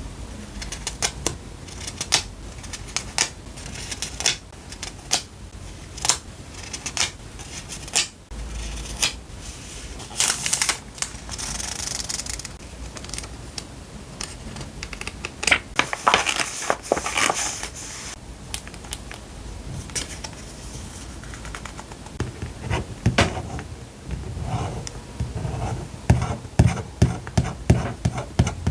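Paper stationery and its packaging being handled: a string of light taps and clicks, with rustling swishes of paper sliding a few times and a quick run of soft knocks near the end.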